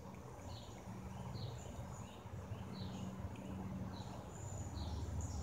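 A bird chirping over and over outdoors, short high notes about once a second, over a low steady rumble.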